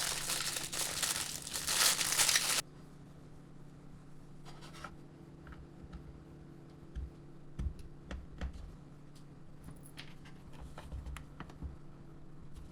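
Plastic packaging being crinkled and torn open, loud for about the first two and a half seconds, then cutting off abruptly. After that, faint scattered clicks and taps of small plastic parts being handled over a low steady hum.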